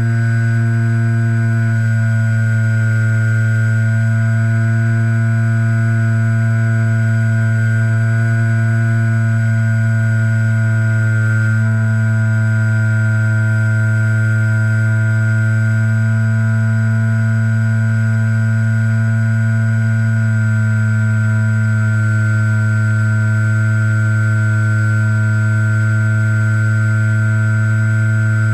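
Electric motor and propeller of a HobbyZone Super Cub RC plane in flight, heard up close from a camera mounted on the plane: a loud, steady buzzing drone at constant cruise throttle, its pitch shifting slightly about a third and two-thirds of the way through.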